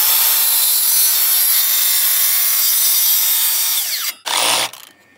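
DeWalt 54V cordless circular saw spinning up and cutting through a timber rafter to make a bird's mouth notch, with a steady loud whine for about four seconds, then winding down. A short burst of noise follows just after.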